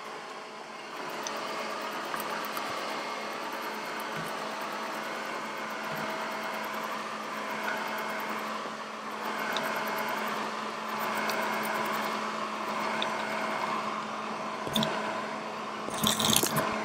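LeFant M500 robot vacuum running: the steady hum of its motor and brushes, with a constant tone, somewhat louder from about a second in as it comes closer. A few sharp knocks near the end.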